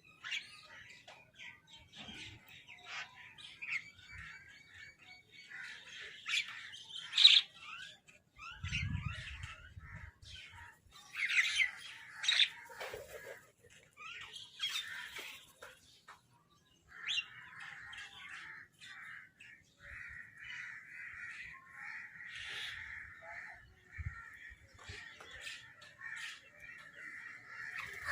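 Crows cawing among the chirping of other birds: loud separate calls in the first half, then a dense, steady chatter of many birds in the second half. A low thump sounds about nine seconds in.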